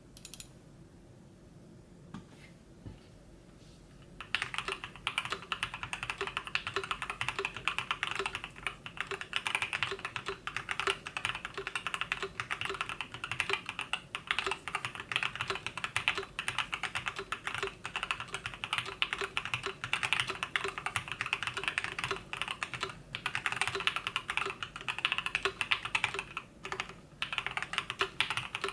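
Custom KBD67 MKII mechanical keyboard with Gateron Black Ink switches, dampened with StupidFish PCB and case foam and added polyethylene foam, being typed on: a few single key presses, then fast continuous typing from about four seconds in, thinning to scattered presses near the end.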